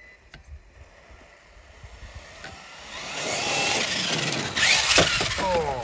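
Losi LMT RC monster truck's brushless electric motor whining as the truck speeds over gravel, with tyres crunching and spraying gravel, growing loud from about three seconds in. A sharp knock near five seconds, then the motor whine drops in pitch as the truck slows.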